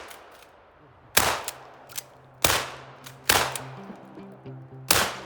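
Shotgun fired four times at uneven intervals: about a second in, at two and a half, at a little over three, and near the end. Each shot has a short decaying tail, and fainter clicks come between the shots.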